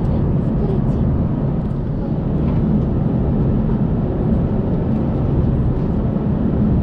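Airbus A380 cabin noise in flight: the engines and airflow heard as a steady low rumble through the cabin.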